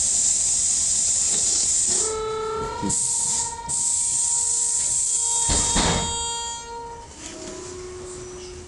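Trolleybus compressed-air system hissing loudly in several long blasts of released air. A steady tone sounds alongside from about two seconds in, for several seconds.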